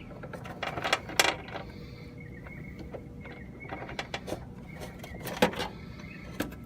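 Scattered clicks and light clanks of tools and parts being handled, with a cluster of sharp knocks about a second in and a few more near the end.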